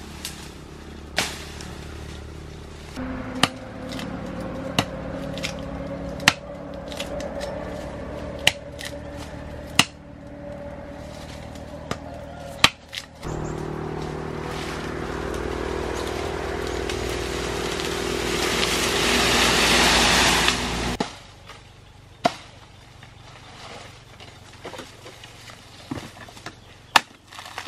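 An engine running steadily. About halfway through its note changes; it then grows louder and cuts off abruptly. Scattered sharp clicks and snaps run throughout.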